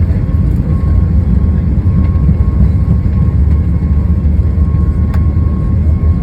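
Boeing 737 MAX's CFM LEAP-1B turbofans at takeoff thrust: a loud, steady rumble with a thin, steady whine above it. A single short click comes about five seconds in.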